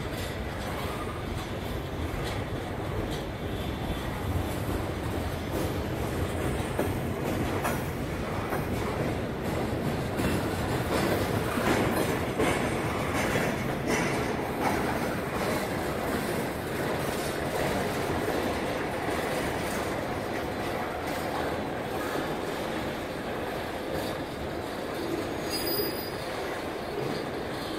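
A freight train's double-stack intermodal well cars rolling steadily past close by, the wheels knocking and clattering over the rail joints, a little louder around the middle.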